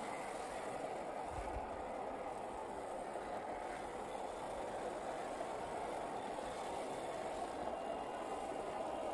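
A 1/10-scale RC crawler's electric motor and geared drivetrain run steadily while its mud-caked tyres churn through sticky mud.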